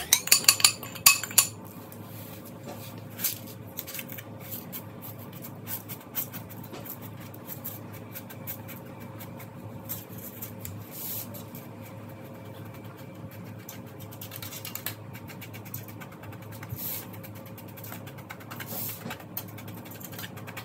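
A metal spoon clinks sharply against a glass bowl for the first second and a half as the last graham cracker crumbs are knocked out. Then comes a long stretch of soft scraping, with small taps, as the spoon presses the crumbs down into a metal springform pan.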